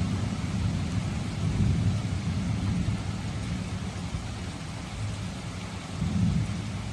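Steady rain falling, an even hiss over a low rumble that swells about a second and a half in and again near the end.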